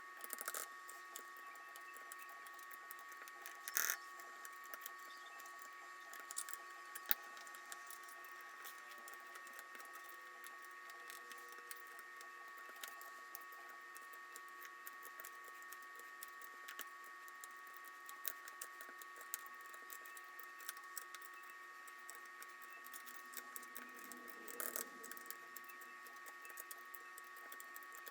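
Faint, scattered plastic clicks and taps of pudding keycaps being pressed onto a mechanical keyboard's switches, a few sharper clicks standing out, over a faint steady high whine.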